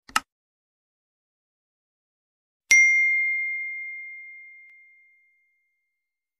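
A short mouse click, then a single bell ding that rings out and fades away over about two and a half seconds: the click and notification-bell sound effects of a subscribe-button animation.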